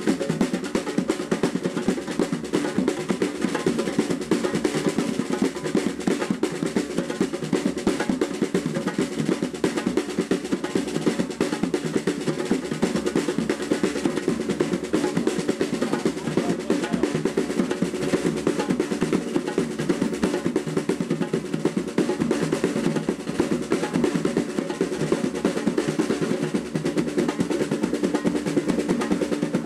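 Fast, continuous drumming: a dense, unbroken roll of drum strokes that keeps an even intensity throughout.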